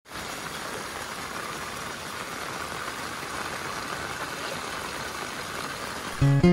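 Steady rain falling, an even hiss. Near the end, plucked string music begins.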